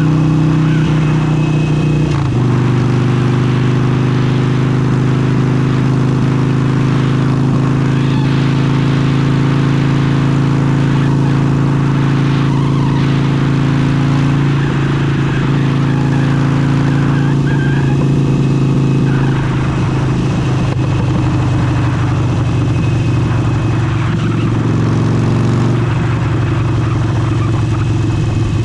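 Harley-Davidson Forty-Eight's 1200 cc V-twin running under way with an aftermarket Vance & Hines exhaust. Its note drops in pitch about two seconds in and shifts several more times after that.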